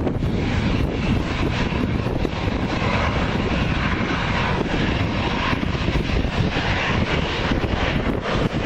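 Jet engines of a Boeing 757-200 at takeoff thrust: a loud, steady low rumble with a rushing hiss above it.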